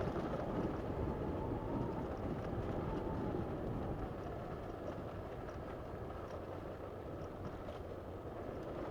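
Muffled, steady rumble of a motorcycle being ridden: engine and road noise picked up by the rider's own microphone.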